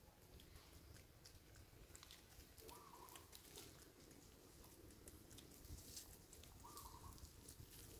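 Near silence: faint outdoor ambience with light scattered ticks and rustles, and a short call twice, about four seconds apart.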